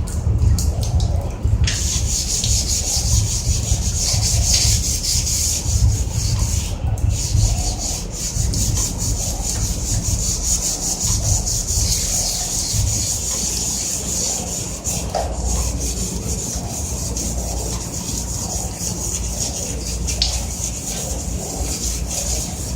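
Continuous abrasive rubbing or scrubbing, as of sanding the metal casing of a water heater, in rapid repeated strokes with a steady hiss.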